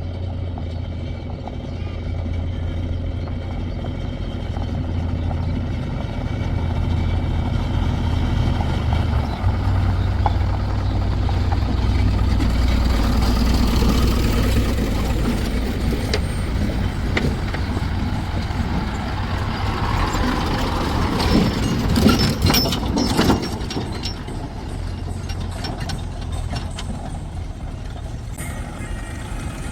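Diesel engines of a JCB 3DX backhoe loader and a tractor running steadily with a low hum. About 21 seconds in comes a two-second burst of clattering knocks, the loudest part.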